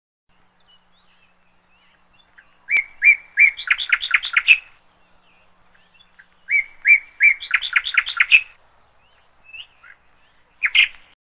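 A songbird singing two similar phrases, each a few even notes followed by a quicker run of notes, then a short call near the end.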